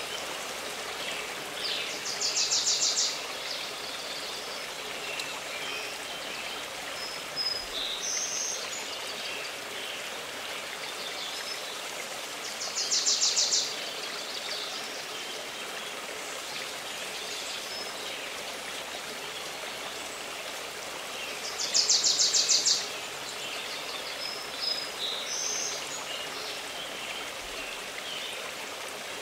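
A stream running steadily, with a bird singing a short, rapid, high trill three times, about ten seconds apart, and a few softer chirps in between.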